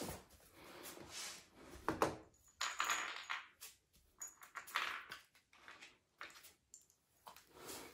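Hands handling flat-pack furniture parts on a tile floor: a run of irregular clicks, knocks and rustles as small fittings and a cordless screwdriver are picked up and set down on the panel.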